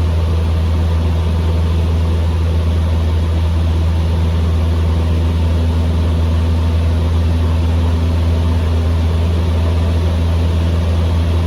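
Cessna 150M Aerobat's four-cylinder Continental O-200 engine and propeller running steadily in flight, a constant low drone.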